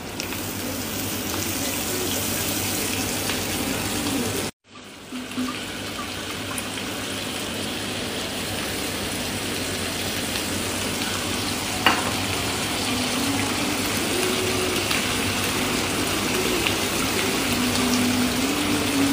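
Sliced onions frying in hot oil in a wok, a steady sizzle that cuts out briefly about four and a half seconds in, with one sharp click near twelve seconds.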